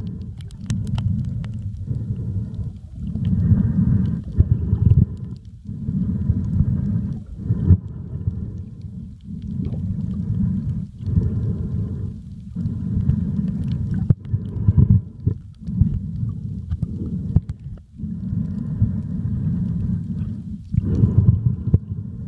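Muffled underwater rumble and sloshing of moving sea water, heard from below the surface, swelling and dropping in surges every second or two with a few faint clicks.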